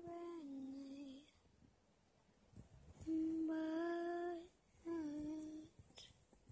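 A woman's voice humming a slow, lullaby-like tune unaccompanied, in long held notes: one phrase at the start, then after about two seconds of quiet two more, the first of these the loudest.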